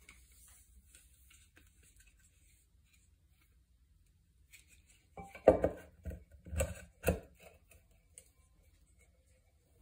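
The white plastic rope pulley of a Rotax 377 rewind starter being set down and fitted into its metal housing: a short run of knocks and clatter about halfway through, the first knock the loudest.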